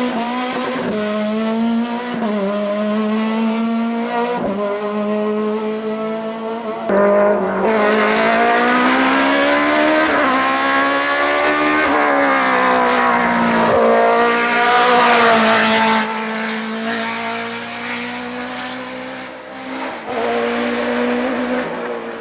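Hillclimb race car engines at full throttle, revving up and dropping back as they shift through the gears. The sound changes abruptly about seven and sixteen seconds in, and is loudest through the middle stretch.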